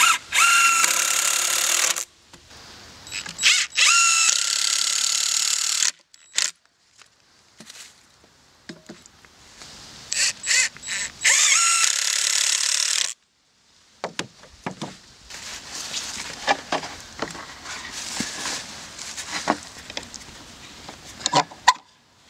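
Cordless drill driving screws through metal angle brackets into the end of a log, in three runs of two to three seconds each, its motor whine rising as each run starts. Quieter scattered clicks and knocks follow in the second half.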